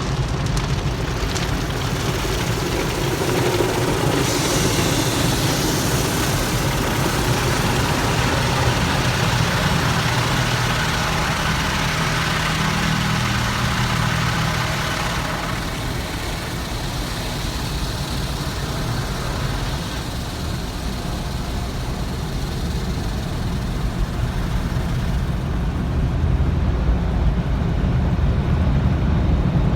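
Automatic car wash equipment working over a car, heard from inside the cabin: a steady rush of water spray and machinery against the body, over the low hum of the car's idling engine. The rush shifts in character a few times as the wash moves through its stages.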